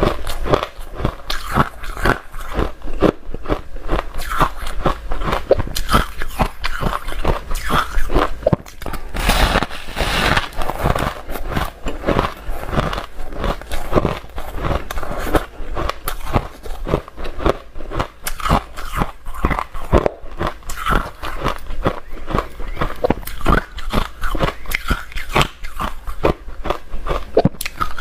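A person biting and chewing hard ice in a steady run of crisp crunches, with a denser burst of crunching about ten seconds in.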